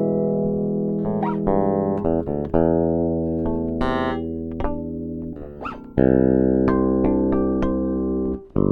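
Ibanez SR-3006E six-string electric bass with Bartolini NTBT-918 pickups and preamp, recorded direct, playing a run of plucked, ringing notes. Two quick pitch slides come in the run, and a louder note is struck about six seconds in.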